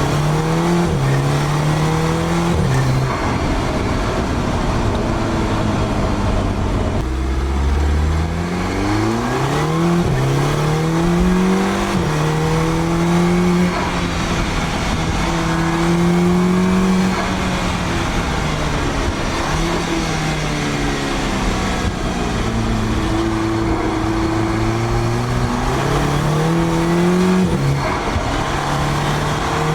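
Audi S3 8P's turbocharged 2.0 TFSI four-cylinder, fitted with an aftermarket downpipe, pulling through the gears. The engine note climbs, drops sharply at each upshift (about a quarter, two fifths and nine tenths of the way through), holds, eases off for a few seconds, then climbs hard again.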